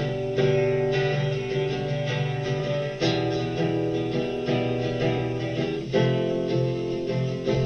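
Instrumental passage of a song led by guitar, with strummed chords changing about every three seconds and no singing.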